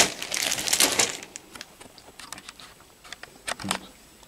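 Clear plastic bags of model-kit sprues being handled and crinkled: a sharp crackle and rustle in the first second, then scattered light rustles and clicks of plastic.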